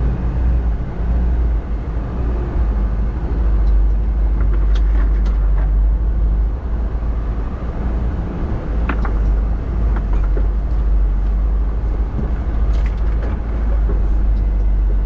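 Isuzu NPS 4x4 truck's diesel engine running with a steady low drone as the truck drives slowly along a narrow sand track, with occasional light clicks and rattles.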